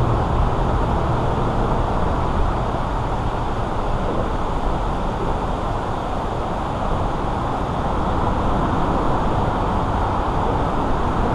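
Steady roadway traffic noise from the highway bridge overhead: a constant rumble and hiss of passing vehicles with a low hum underneath.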